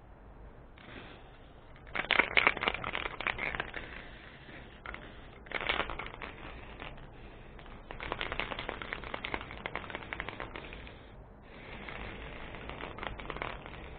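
Aerosol spray-paint can spraying in four hissing bursts of one to three seconds each, with short pauses between; the longest runs from about eight seconds in.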